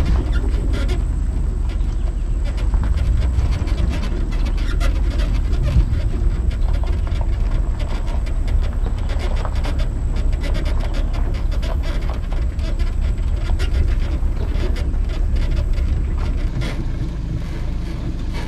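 Heavy wind rumble on the microphone, with a steady stream of small rattles and clicks from a boat riding its trailer as it is towed over gravel. The rumble changes about a second and a half before the end.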